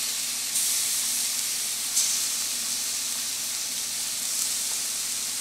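Seasoned chicken breast strips sizzling in a very hot nonstick frying pan: a steady high hiss that grows louder about half a second in, with a brief flare about two seconds in, as more strips are laid in.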